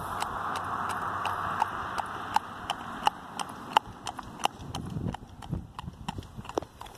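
Black-and-white paint horse's hooves clip-clopping on an asphalt road in a steady, even beat of about three strikes a second, growing fainter as the horse moves away.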